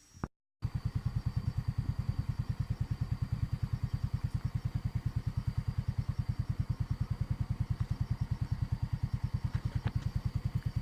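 Small motorbike engine running with an even, rapid putter of about ten beats a second. It starts after a brief drop to silence at the start.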